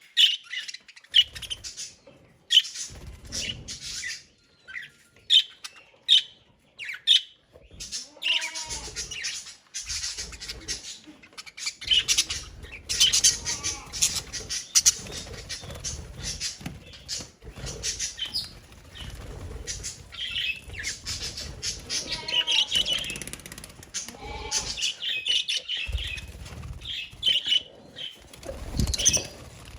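A colony of budgerigars chirping and chattering continuously in many short, overlapping calls, with bursts of wing-flapping.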